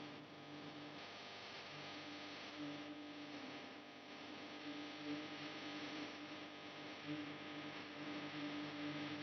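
Faint, steady electrical hum with a soft hiss from running microsoldering bench equipment.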